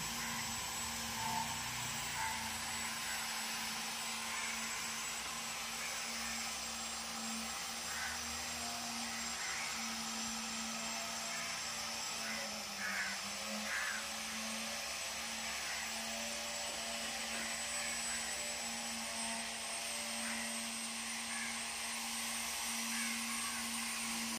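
Steady low hum and hiss of a small motor running, with a few faint short chirps.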